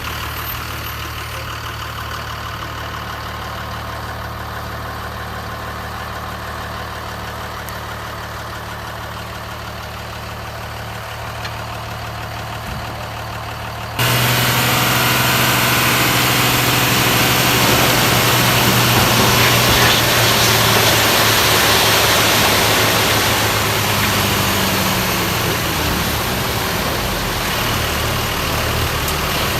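Simulated engine idling from an RC construction toy's sound module, a steady low drone. About halfway through it suddenly gets louder, with a hiss added over the drone.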